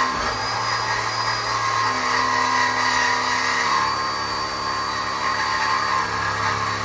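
Reciprocating saw (Sawzall) with a 12-inch blade running steadily, cutting through a 3-inch exhaust pipe.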